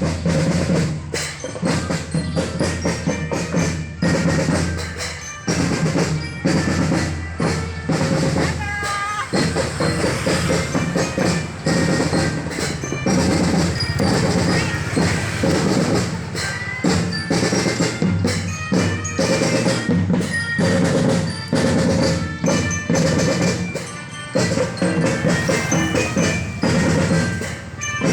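School drum band playing: bass drums and snare drums beating a steady march rhythm, with snare rolls and a glockenspiel (marching lyre) picking out a melody.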